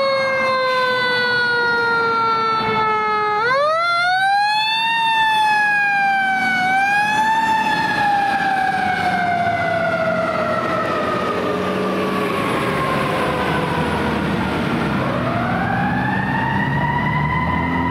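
Fire truck siren wailing. It winds up quickly several times and slowly coasts down in pitch between rises, with the truck's diesel engine rumbling underneath.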